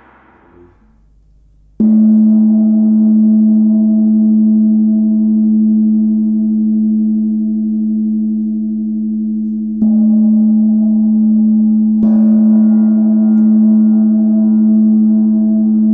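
Hand-hammered Tibetan meditation gong struck three times: once about two seconds in, then about eight seconds later and again two seconds after that. Each stroke sets off a deep, steady hum with a slow wavering pulse, and the gong rings on between strokes.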